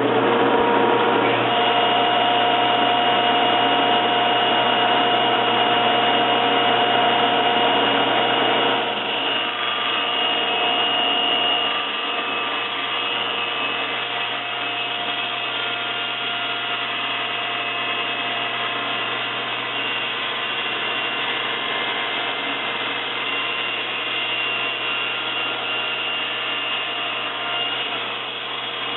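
Table saw running steadily, its tilted blade making a long bevel cut through a wooden tabletop held upright in a fence-riding sled. It is louder for about the first nine seconds, then settles a little quieter.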